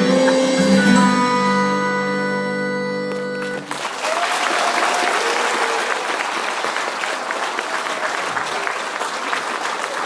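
A song's instrumental ending holds its final chord and stops about three and a half seconds in. The audience then breaks into steady applause.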